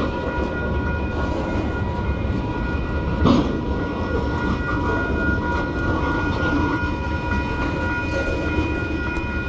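Freight train rolling past: a steady rumble of steel wheels on the rail with a high steady ringing over it, and one sharp clank about three seconds in.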